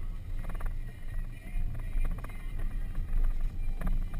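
Off-road vehicle rolling down a rough dirt track, heard from inside the cabin: a steady low rumble of engine and tyres, with a couple of sharp knocks and rattles from the suspension over the bumps.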